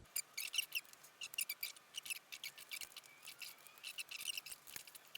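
An alcohol swab rubbing back and forth over the mounting spot: faint quick scratchy strokes, several a second, cleaning the surface before the Velcro goes on.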